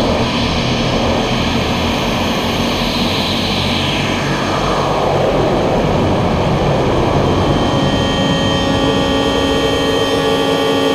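Experimental ambient soundtrack: a dense, steady wash of rumbling noise with a band that sweeps down in pitch a few seconds in, then several steady held tones entering about three-quarters of the way through.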